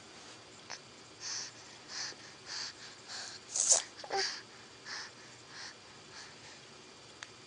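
A series of short breathy puffs, about one every half second, with one louder, sharper puff about three and a half seconds in that falls in pitch.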